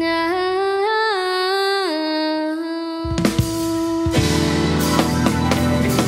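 A young girl singing one long held note into a microphone, sliding up and back down before settling, over sparse band backing. Drums hit about three seconds in, and the full band with drum kit comes in about a second later.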